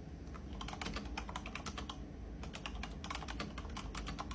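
Typing on a Razer BlackWidow V3 TKL mechanical keyboard: rapid runs of key clicks, with a short pause about a third of the way through.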